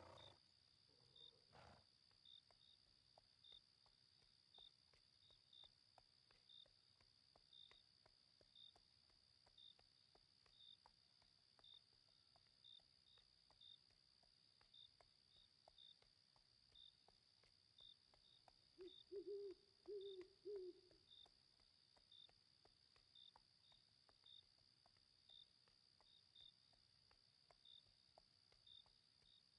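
Faint night ambience of crickets: a steady high trill with separate chirps repeating about once or twice a second. About two-thirds of the way through, an owl hoots in a short run of four or five low notes.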